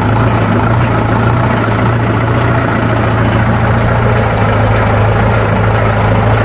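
Mahindra tractor's diesel engine running at a steady pace, a constant low drone with no change in speed.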